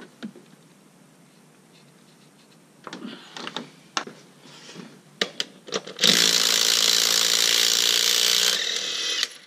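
A few clicks and knocks of a socket being fitted, then a cordless right-angle impact driver hammering for about three seconds on a cylinder head bolt of a 6.7 Cummins diesel, breaking it loose so it can be replaced with a head stud.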